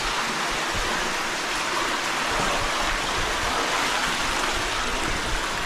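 Steady rushing of water in an underground cave stream.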